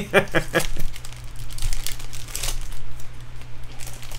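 Foil wrapper of a Bowman Draft jumbo baseball card pack being torn open and crinkled by hand, in irregular crackling rustles.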